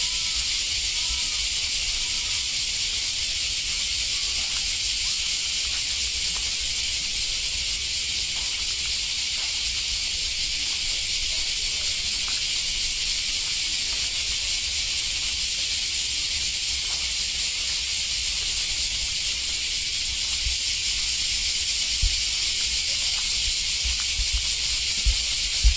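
A loud, steady high-pitched hiss, unchanging throughout, with a low rumble underneath and a few soft knocks near the end.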